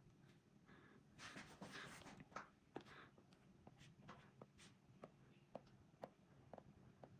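Stylus tip tapping and rubbing on a tablet's glass screen: a run of faint sharp clicks, with a short scratchy rub about a second in.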